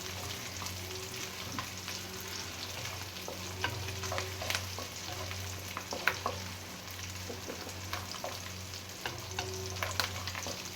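Pork belly frying in a pan, sizzling with irregular sharp pops of spattering fat every second or two. A steady low hum runs underneath.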